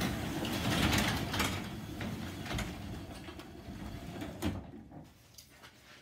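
Sectional garage door rolling open along its tracks, a rumble with scattered clicks, loudest at first and fading away over the last second or so. The door is running on a newly replaced torsion spring, being opened to check its balance.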